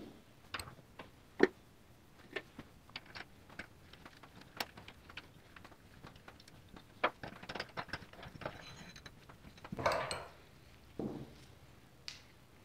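Small metal parts of a motorcycle fuel tap clicking and tinking as it is taken apart by hand and worked with a spanner while clamped in a bench vise: a run of sharp separate metallic clicks, with a longer rattle near the end.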